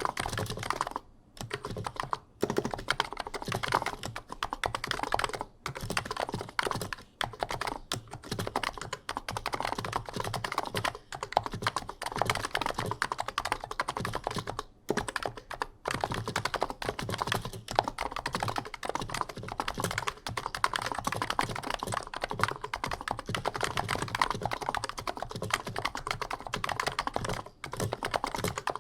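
Continuous fast typing on an Abko Hacker K965P V2 keyboard with 55 g Niz electrocapacitive (Topre-style) switches, a deep thocky clatter of keystrokes with a few brief pauses. The stabilized keys add rattly, springy sounds because their factory lube has worn off.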